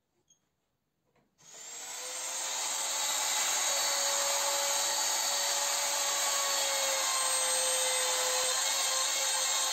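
Compact trim router switched on about a second and a half in, spinning up over a couple of seconds, then running at full speed with a steady whine as it cuts the pine frame edge.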